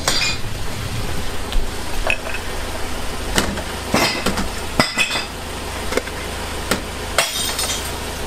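Glass bottles dropped one at a time through the hole of a glass recycling bank, each landing with a crash and clink of glass inside; several drops spaced about a second apart, under a steady low rumble.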